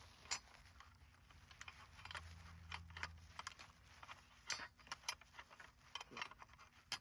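Faint, scattered clicks and light metallic rattles as a car door handle and its bracket are handled and slid into place inside the door.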